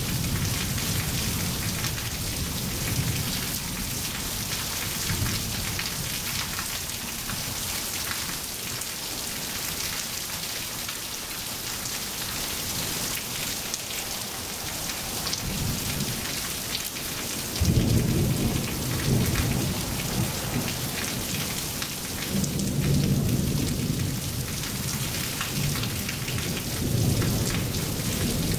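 Steady rain falling on wet pavement, with rolling thunder rumbling in low about two-thirds of the way through and again near the end.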